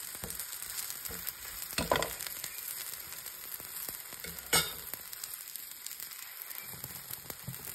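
Chive-and-flour pancake sizzling in hot ghee in a frying pan: a steady frying hiss, with two brief knocks or scrapes about two seconds in and again past halfway.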